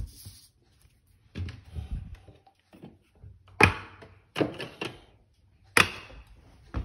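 Scattered knocks and clacks of objects being handled and set down on a kitchen countertop, a handful of sharp ones in the second half, with quiet gaps between them.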